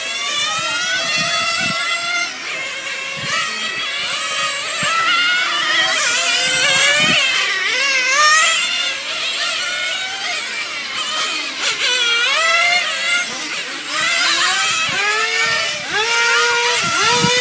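Small two-stroke nitro glow engines of several radio-controlled touring cars running at high revs, their pitch rising and falling over and over as the cars accelerate down the straights and lift off for the corners, the engines overlapping.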